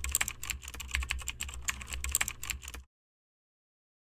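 Typing sound effect: rapid, irregular keyboard clicks over a low steady hum, cutting off suddenly nearly three seconds in.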